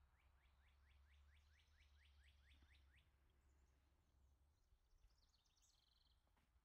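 Faint birdsong: a songbird gives a rapid trill of about five falling notes a second for roughly three seconds, then a few higher chirps near the end, over a faint low hum.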